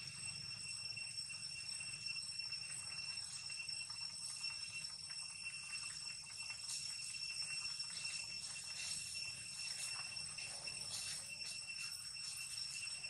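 Steady high-pitched drone of insects shrilling without a break at a few fixed pitches, with faint scattered ticks in the second half.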